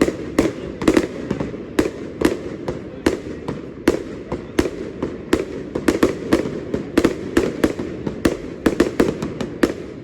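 Fireworks show: a rapid, continuous series of sharp aerial shell bangs and pops, several each second over a steady rumble.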